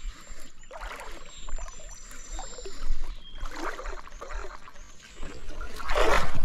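Water swishing as a floating swimbait is worked across the surface, then a loud splash near the end as a smallmouth bass strikes it hard.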